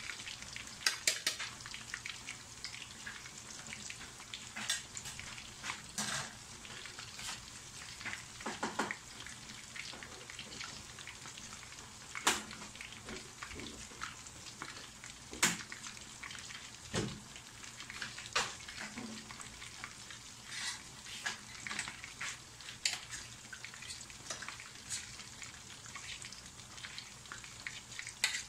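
Chicken pieces frying in hot oil in a wok: a steady sizzle with frequent sharp crackles and pops at irregular moments.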